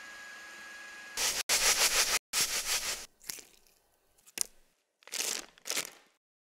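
Mixing sounds: an electric hand mixer beating butter and egg, then a silicone spatula scraping and pressing crumbly dough against a glass bowl, in several short bursts with abrupt cuts between them.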